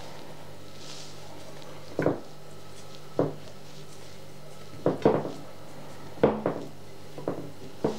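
Raw potato slices being laid overlapping into a deep baking dish: light, irregular taps and clacks, about eight of them, over a faint steady hum.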